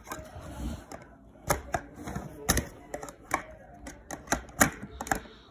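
A string of irregular sharp clicks and knocks from hard plastic toy playset pieces being handled and fitted together.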